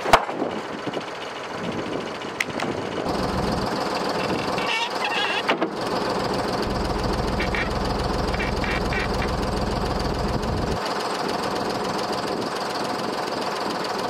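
Volvo BM loader tractor's diesel engine running steadily, with a deep rumble through the middle, as heavy oak slabs are moved and stacked. A single sharp knock comes right at the start.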